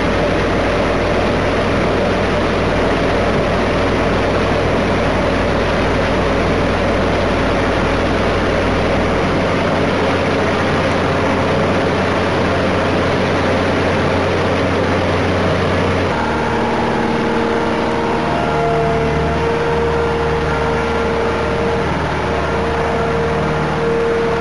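Engines of heavy road-paving machinery laying tarmac, running steadily with a loud, constant drone. The low hum shifts partway through, and a steady higher tone joins about two-thirds of the way in.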